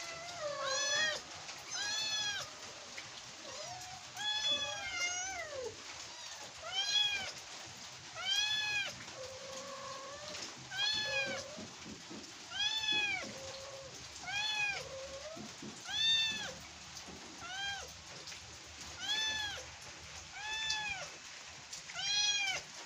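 A kitten meowing over and over, high arching meows coming about once every one to two seconds, with a few flatter, lower calls in between. It is calling because it wants to get down from its high perch.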